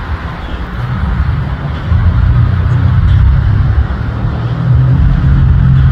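Jet engine noise from a jet on its takeoff climb, a deep rumble with a steady hiss over it, growing louder about two seconds in.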